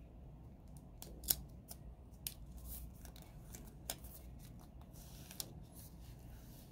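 Thin plastic protective sleeve crinkling as it is slid off a smartphone, with a few sharp crackles and clicks, the loudest about a second in.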